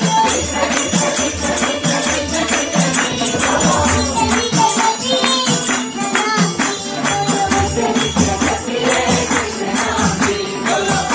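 Group devotional singing of a Hindi bhajan, with many hands clapping in rhythm over a steady low beat.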